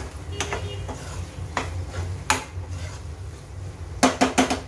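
A spatula stirring fresh cashews through a thick masala in a non-stick kadai, knocking against the pan about every second, then a quick run of four or five sharper knocks near the end.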